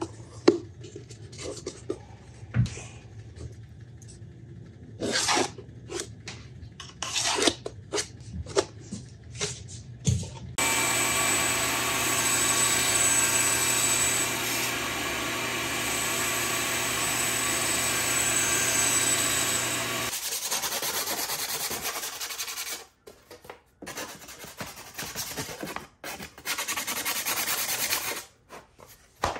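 Workshop sounds of wood being worked and handled: scraping, rubbing and knocks, then about ten seconds of a power tool running steadily with a whine, then more intermittent scraping and handling noise.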